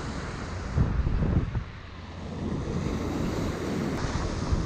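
Wind buffeting the microphone in gusts, loudest about a second in, over the steady wash of waves breaking on a shingle beach.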